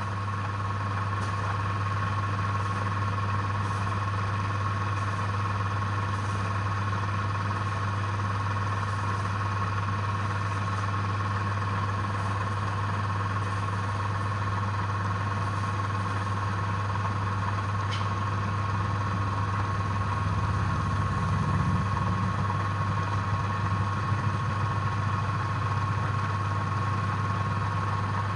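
Wood lathe motor running steadily: a constant low hum with a thin high whine over it, a little rougher and louder from about twenty seconds in.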